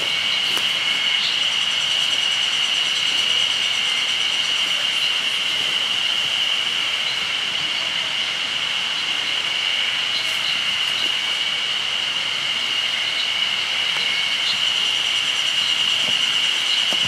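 Chorus of insects trilling steadily and shrilly, a constant high ringing with a fast pulsing shimmer above it.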